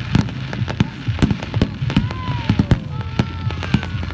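Fireworks going off: a quick, irregular run of sharp bangs and crackles, with thin whistles sliding in pitch in the second half.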